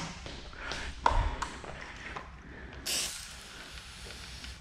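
Small handling taps and a knock about a second in, then a short hiss of a hand pump sprayer misting solution onto the film about three seconds in.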